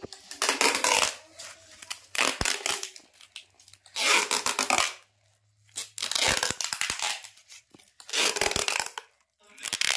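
Clear packing tape being pulled off its roll in about six ripping pulls, each about a second long with short pauses between, as it is wound around a tube.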